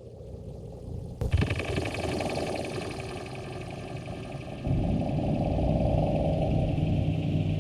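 Experimental electronic music with a dense, noisy texture of engine-like rumble. A sharp attack comes about a second in, and a steady low drone joins a little past halfway, making it louder.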